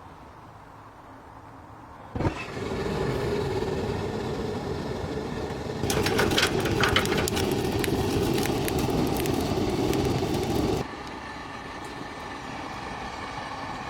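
Gas heater burner lighting with a sudden whoosh about two seconds in, then burning with a steady roar. A spell of crackling rides over it from about six seconds in, and about eleven seconds in the sound drops suddenly to a quieter steady hiss.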